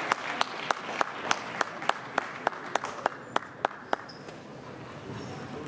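Hand clapping at an even pace, about three claps a second, stopping about four seconds in: applause after a point in a table tennis match.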